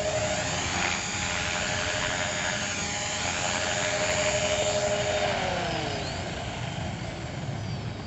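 Small radio-controlled helicopter's motor and rotor whining steadily in flight, then falling in pitch about five seconds in as it settles onto the ground and spools down.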